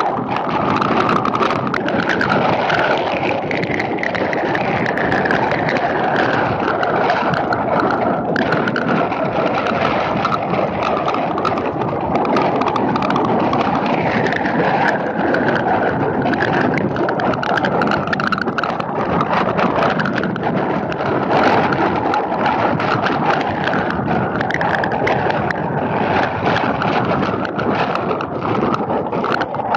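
Steady rushing wind and rain noise on the microphone of a camera mounted outside a moving vehicle, with faint whistling tones that slide down in pitch now and then.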